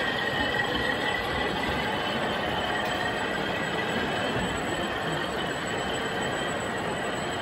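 O gauge model train rolling past: a long rake of wagons running along the track with a steady rumble of wheels on rail and a faint high squeal.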